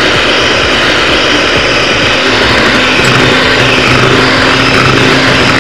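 Electric hand mixer running steadily, its beaters whisking eggs and caster sugar in a bowl. A low motor hum settles in about two seconds in.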